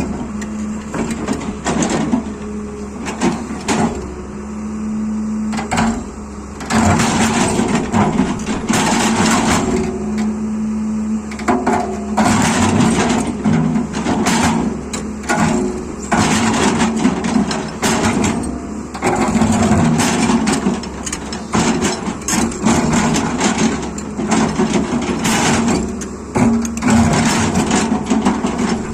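Excavator working: its engine runs steadily under irregular clattering and scraping noises that come and go every second or two.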